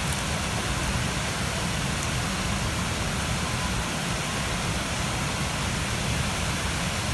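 Steady rushing of a waterfall mixed with wind buffeting the phone's microphone as a low, uneven rumble.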